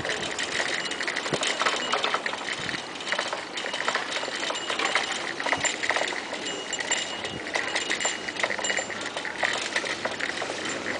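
A city bicycle rattling and clattering as it rides over brick paving, with a continuous run of small irregular knocks.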